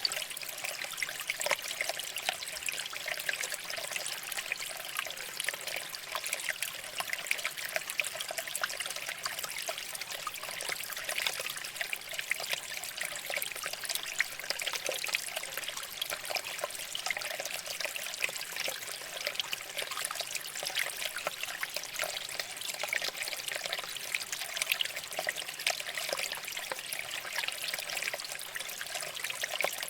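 Shallow stream water flowing and trickling over rocks: a steady, even babble of small splashes.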